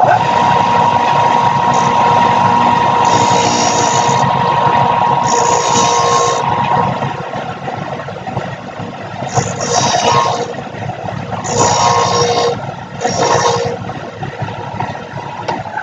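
A benchtop belt and disc sander's motor starts and runs with a steady hum. A steel drill bit is pressed against the spinning abrasive five times, each a grinding hiss lasting about a second, as it is sharpened.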